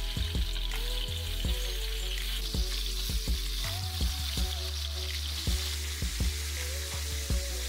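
Pork ribs sizzling in hot oil in a skillet as they fry over high heat, a steady hiss with scattered short clicks as the pieces are placed and moved with tongs.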